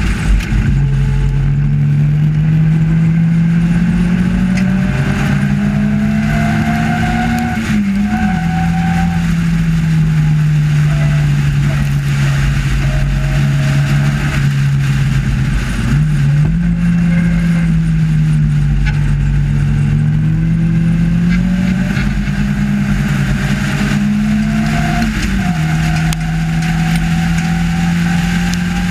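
Sports racing car's engine heard from the cockpit at race pace, the note climbing steadily and dropping sharply at gear changes about eight seconds in and again near the end, with a brief dip and recovery midway. Wind rush over the open cockpit runs underneath.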